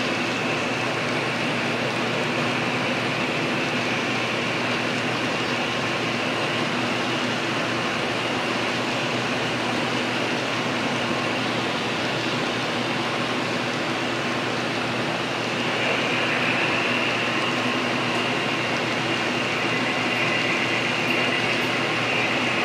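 HO-scale covered hopper cars rolling past on model track: a steady rolling whir of small metal wheels on rail, with a thin high tone that grows a little stronger about two-thirds of the way through.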